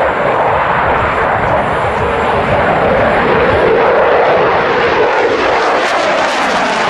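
F-16A fighter jet's turbofan engine noise during a hard display turn: a loud, steady rush of jet noise that swells in the middle and grows rougher and hissier near the end.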